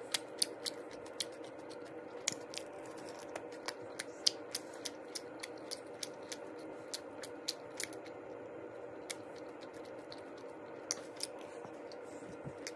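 Seaweed-wrapped rice sandwich crackling as it is pulled apart by hand: many sharp, irregular crackles over a steady low hum.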